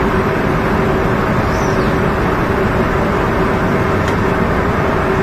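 Barge's sand-unloading machinery running steadily, a constant hum over an even rush, while alluvial sand slides down into the hold's discharge opening.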